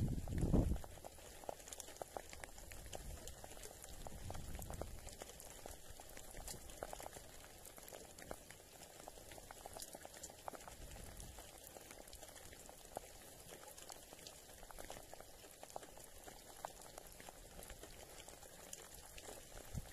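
Seawater lapping and splashing against the side of a small boat, a steady fizzing crackle with many small ticks. A brief low rumble comes just after the start and again around four to five seconds in.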